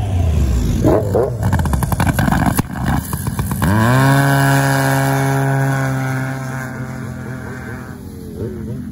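Racing snowmobile engines revving hard at the start line, then launching about three and a half seconds in: the pitch climbs quickly and then holds steady at high revs while the sleds accelerate away. The engine note fades toward the end.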